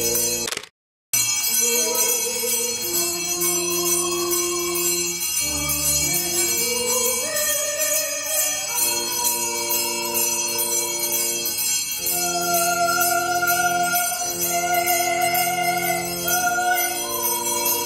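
Church music: held chords with voices singing, over a fast, even jingling of bells. The sound drops out completely for a moment about half a second in.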